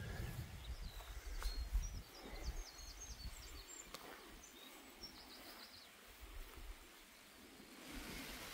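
Faint outdoor quiet with a small bird singing a run of short, high chirps a second or two in, over an uneven low rumble.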